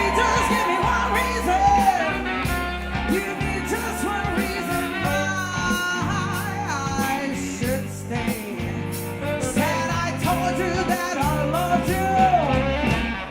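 Rock music with singing over guitar, bass and a steady drum beat; it cuts off abruptly at the end.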